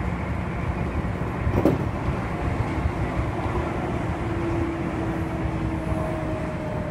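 Seibu commuter train running, heard from the driver's cab: a steady rumble of wheels on rail, with a brief louder rush about a second and a half in as an oncoming train passes close on the next track. A faint steady motor hum comes in during the second half.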